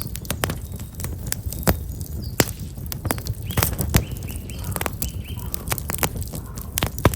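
Wood fire of black locust logs crackling, with frequent sharp pops and snaps over a steady low rumble of the flames. Small birds chirp briefly a few times in the middle.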